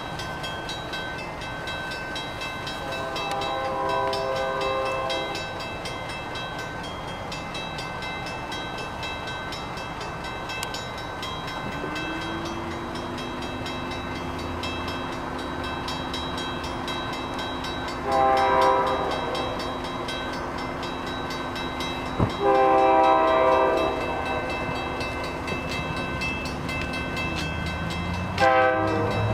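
Approaching locomotive's multi-note chime horn sounding four times, getting louder as the train nears: a long blast about three seconds in, a short one and a longer one later on, and another starting just before the end. Between the later blasts a steady low drone sits under the horn.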